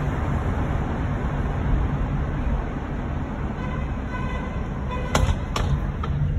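Steady low road and traffic rumble heard from inside a slowly moving car. A faint high held tone sounds for about a second past the middle, and two sharp knocks come close together near the end.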